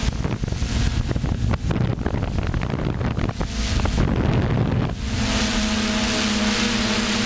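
FPV quadcopter's motors and propellers humming steadily, heard through the onboard camera's microphone. For the first five seconds the hum is swamped by rough, crackling wind buffeting on the microphone, then the steady hum comes back.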